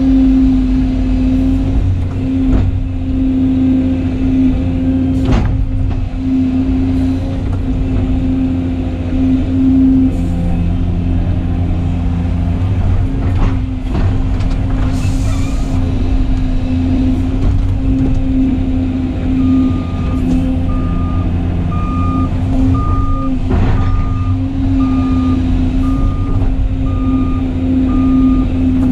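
Volvo excavator's diesel engine and hydraulics running steadily under load, heard from inside the cab, with a few knocks from the bucket working and a short hiss about halfway. About two-thirds of the way in a backup alarm starts beeping steadily.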